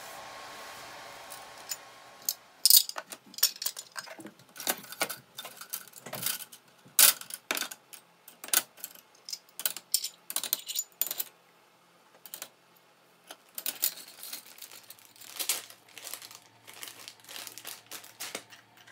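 Kitchen tidying: a short hiss of running tap water, then a long series of sharp clinks and clatters as kitchenware is set on a stainless steel wire rack. Near the end, a soft plastic pack of floor-wiper sheets crinkles and rustles.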